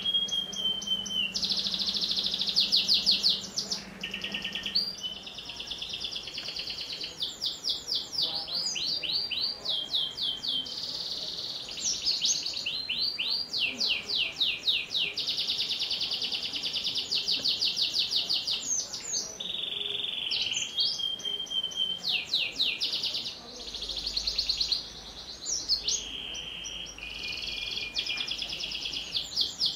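Domestic canary singing a long, unbroken song of fast rolling trills, with a few held whistled notes in between.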